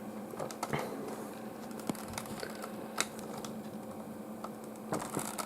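Scattered light clicks and taps from handling a phone, a dozen or so irregular ticks with one sharper click about three seconds in, over a faint steady hum.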